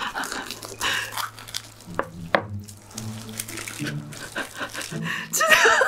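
Knife cutting through the crisp fried crust of a large cheese-stuffed bread, a run of crackling crunches, then the loaf pulled apart by hand.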